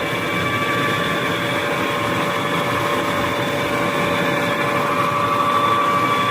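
Car differential giving a steady whining hum over road noise while driving, growing slightly louder near the end; the mechanic says it could be a worn pinion bearing.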